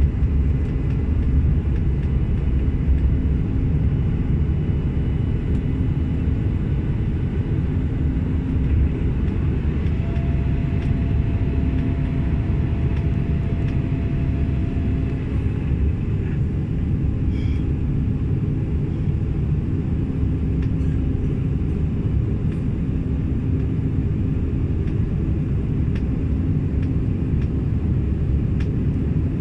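Cabin noise inside a Bombardier CRJ900 regional jet climbing after take-off: a steady low rumble from its rear-mounted GE CF34 turbofans, with a constant low hum running through it.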